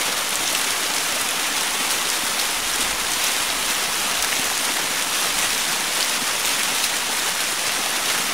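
A steady, even rain-like hiss at a constant level, with no speech.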